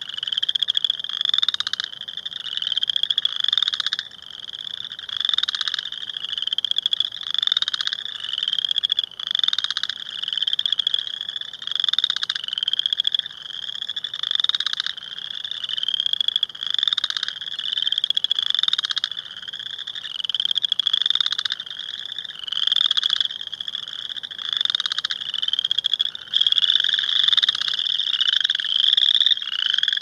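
Chorus frogs calling loudly: a run of rising, rattling trills, each about a second long, following one another and overlapping without pause.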